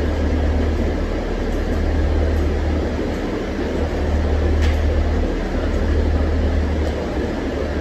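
Steady, loud low machine drone with a faint tick about halfway through.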